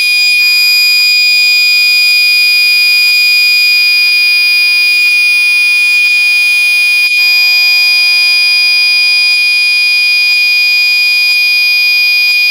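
Fire alarm sounding one continuous, very loud high-pitched tone under test, with a brief dip about seven seconds in.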